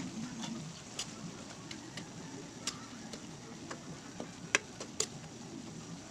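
A metal ladle stirring rice noodles in an aluminium wok, tapping and scraping the pan in a few sharp irregular clicks, the loudest two near the end.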